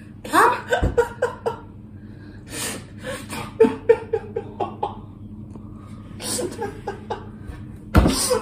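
People laughing in breathy bursts and quick runs of chuckles, with a thump about a second in.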